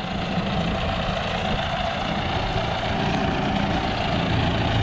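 John Deere 5080R tractor's diesel engine running steadily, getting slowly a little louder.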